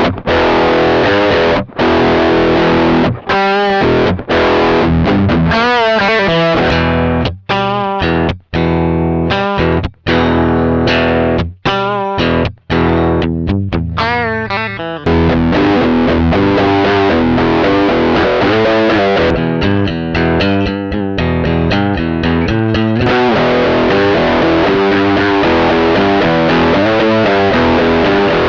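Electric guitar, a 1988 American Standard Telecaster, played through the Midnight Drive overdrive pedal with both drive channels stacked, giving a saturated, distorted tone with long sustaining notes. Chords are cut off by short gaps through the first half, then the playing runs on without breaks from about halfway.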